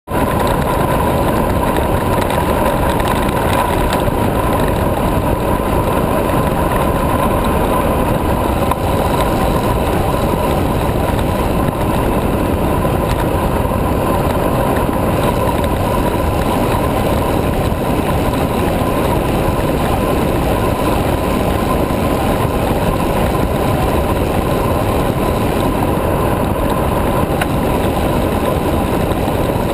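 Steady, loud rush of wind and tyre noise from a carbon high racer recumbent bicycle descending at speed, about 50 km/h, with wind buffeting a GoPro's microphone.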